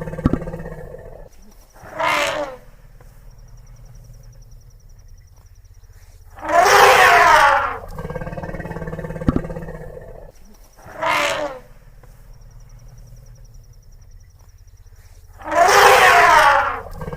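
Elephant calls repeating in a cycle: a short loud call, then a longer, louder one about five seconds later, twice over. Lower rumbling breaths sound between the calls, with faint high insect-like chirping in the quieter stretches.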